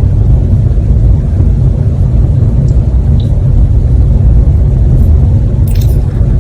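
Steady, loud low rumble with a few faint taps: two small ones about three seconds in and a sharper one near the end.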